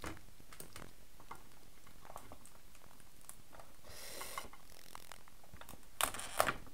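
Cooked king crab legs being twisted and snapped off the body: scattered small clicks and crackles of shell, a short crackling burst about four seconds in, and a few louder sharp cracks near the end as a leg comes free.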